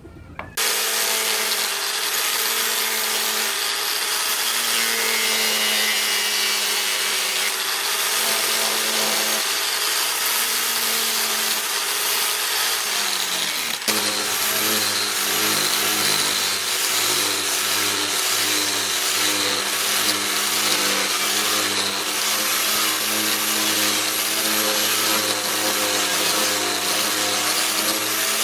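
Electric grinder running and grinding steel, starting about half a second in. It is loud and steady throughout, with its hum tones changing after a click about halfway through.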